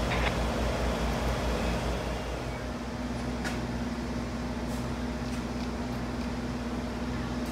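A passing train's low rhythmic pulsing dies away about two and a half seconds in. A steady mechanical hum with a constant tone is left, with a few faint ticks.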